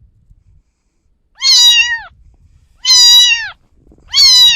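Domestic cat meowing three times, about a second and a half apart, each meow drawn out and falling in pitch at its end.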